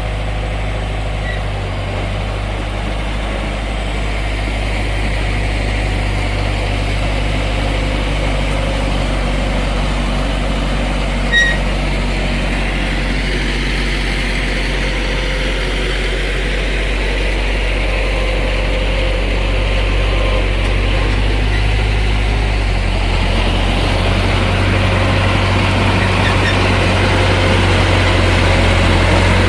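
Bulldozer's diesel engine running steadily, its low note shifting a little about two-thirds of the way through, with one short click about eleven seconds in.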